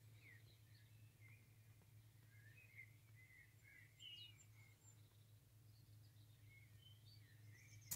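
Near silence outdoors: faint birdsong, a scatter of small chirps, over a low steady hum.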